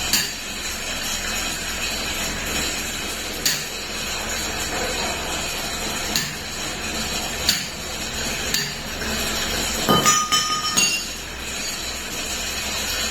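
Metal tools and gearbox parts knocking and clinking during a truck gearbox overhaul: a handful of separate sharp taps spread out, then a quick run of clinks with short metallic ringing about three-quarters of the way through, over a steady background hiss.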